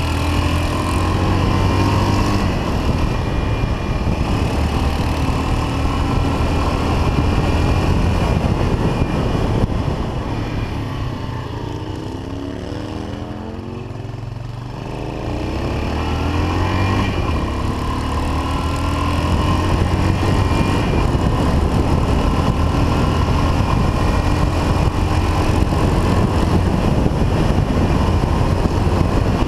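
1979 Yamaha XT500's single-cylinder four-stroke engine pulling along the road, its pitch rising repeatedly as it accelerates. It eases off and goes quieter for a few seconds around the middle, then pulls strongly again.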